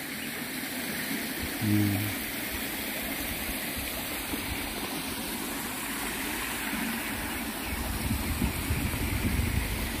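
Small garden waterfall and stream running over rocks: a steady rushing of water. From about eight seconds in, a low uneven rumbling joins it.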